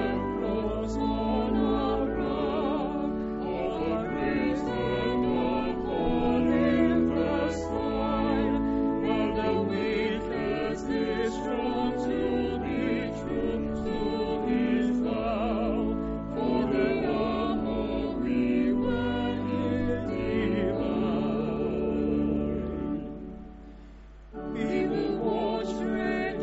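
A small mixed choir of men and women singing a hymn with church organ accompaniment. About 23 seconds in, the verse ends, the music drops away for about a second, then organ and voices come back in for the next verse.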